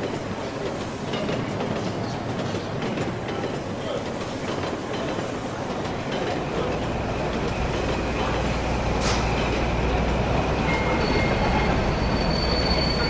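Dubbed railway sound effect of a train rolling through with wheel clatter. A low rumble builds from about halfway, and a thin high wheel squeal sounds near the end.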